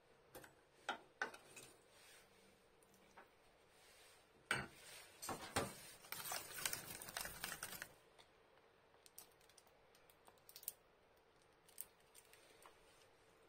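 A metal spoon stirring chopped onion into a dressing in a small stainless steel bowl, clinking and scraping against the bowl. The clinks come as a quick run of taps for about three seconds in the middle, with a few scattered quiet clicks before and after.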